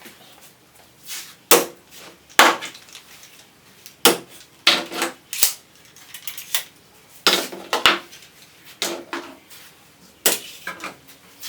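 A hammer or mallet knocking on the wooden chair frame: about a dozen sharp, loud strikes at an uneven pace, some with a short ringing clatter. This is typical of loose chair joints being knocked apart or tapped back together.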